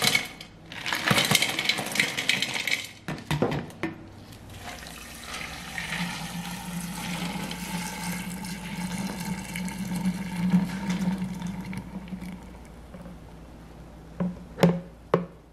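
Blended spinach and water poured in a stream into a large glass jar, splashing as the jar fills. A few sharp knocks follow near the end.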